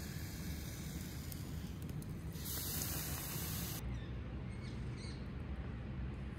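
Milky tea poured from a metal kettle into a clay cup, a steady hissing stream over a low rumble, cut off abruptly about four seconds in.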